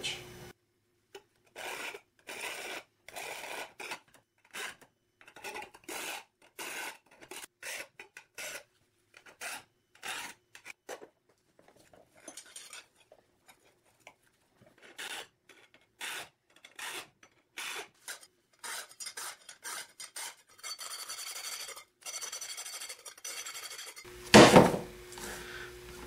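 Hand filing on a steel circular saw blade held in a vise: a long run of short, even rasping strokes, about two a second, with a few pauses. A single loud knock comes near the end.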